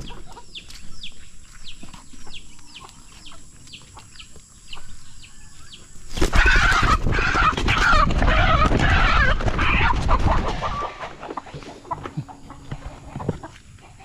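A chicken squawking loudly in alarm while it is grabbed by hand, its wings flapping hard, starting about six seconds in and lasting about five seconds. Before that, a run of short, high, falling chirps repeats about twice a second.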